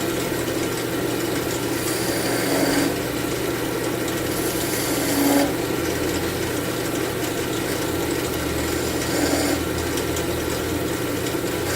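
Wood lathe motor running with a steady hum while a turning tool cuts into spinning cherry wood, giving three brief hissing passes of the cut.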